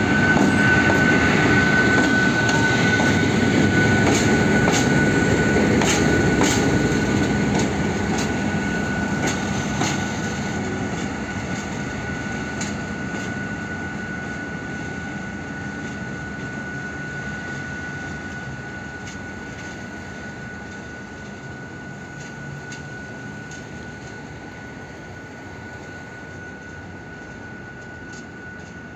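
A pair of coupled diesel locomotives, an M62 and an SM42, pulling away: engine rumble and wheel clicks over the rail joints, loudest for the first ten seconds and then fading steadily as the locomotives run off. A steady high whine sounds throughout.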